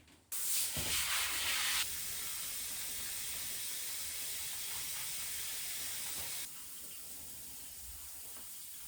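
A steady hiss that starts suddenly, loudest for the first second or so, then holds even and drops to a lower level about two-thirds of the way through.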